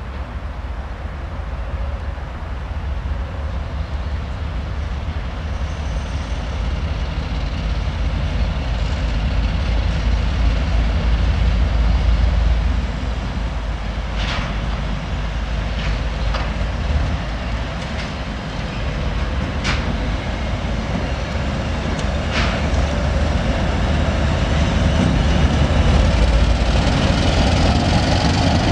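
2M62U two-section diesel locomotive running with its 14D40 two-stroke diesel engines, the heavy low rumble growing louder as it approaches hauling freight wagons. A handful of sharp metallic clicks sound from the running gear around the middle.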